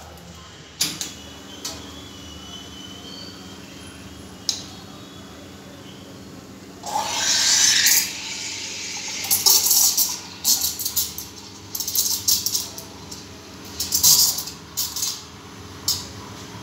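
Espresso machine at work: a few metal clicks and knocks, with a steady machine hum starting about a second in, then the steam wand opens with a loud hiss about seven seconds in, followed by repeated short hissing spurts as milk is steamed in a metal pitcher.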